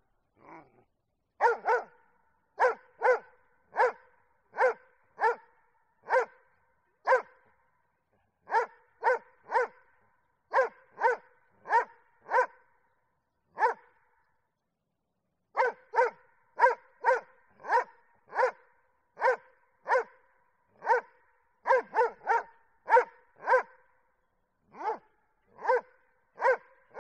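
Dog barking in short single and paired barks, about one to two a second, each at much the same pitch, with a break of about two seconds near the middle.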